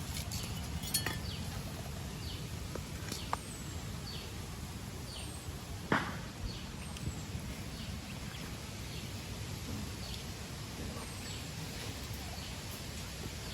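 Small birds giving short, high chirps that slide downward, repeated every second or so over a steady low outdoor rumble, with a sharp click about six seconds in.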